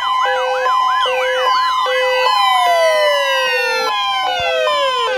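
Layered electronic Emergency Alert System-style warning tones: a steady two-tone signal under a pulsing beep and rapid siren-like chirps, about three a second. About two seconds in, the chirps give way to several tones sliding steadily downward in pitch, and one set plunges sharply near the end.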